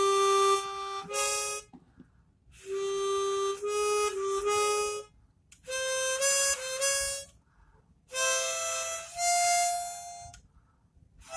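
A 10-hole Golden Cup chromatic harmonica played in four short phrases of held notes with brief pauses between them. Some notes sound mixed with a neighbouring note rather than as one clean tone, because the breath is not landing exactly on a single hole.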